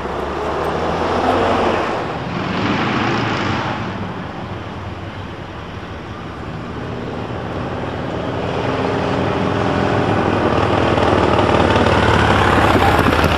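Street traffic: vehicles pass in the first few seconds, then a tram draws closer, its running noise growing steadily louder over the second half.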